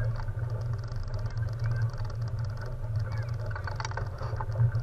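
Boat engine idling: a steady low hum.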